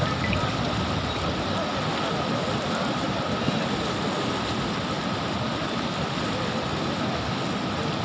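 Steady rushing of muddy floodwater, an even roar with no breaks.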